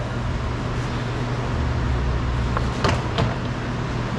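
Plastic retaining clips of a car door trim panel popping out as the panel is pried off with a screwdriver: a few sharp clicks, the clearest about two and a half to three seconds in, over a steady low hum.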